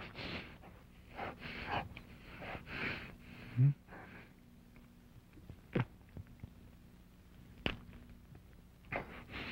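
A man breathing heavily, a run of short hoarse breaths in the first few seconds and again near the end. A single dull, deep thump about three and a half seconds in is the loudest sound, with a couple of sharp clicks later.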